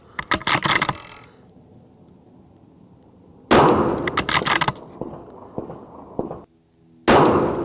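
A 6.5 Creedmoor bolt-action precision rifle: a quick run of metallic clacks as the bolt is worked, then two loud rifle shots, each with a long rolling echo down the range.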